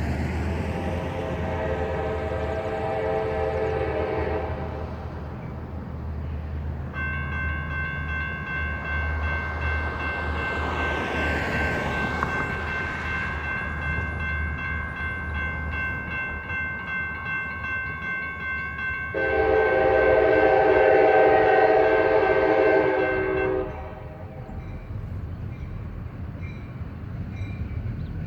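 Horn blasts from CSX GP40-2 diesel locomotives passing a grade crossing, over the steady low rumble of their diesel engines. First a lower-pitched blast, then a long higher-pitched one, then a loud lower-pitched blast near the end. Faint repeated dings from the crossing's electronic warning bells can be heard under the horn.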